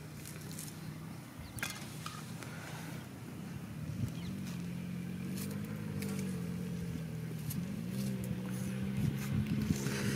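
An engine running steadily in the background. Its hum wavers a little in pitch and grows louder from about four seconds in, with a few faint clicks over it.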